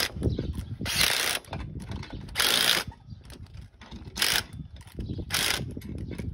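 Cordless power driver running in four short bursts, tightening the nuts of wire-rope cable clamps one after another.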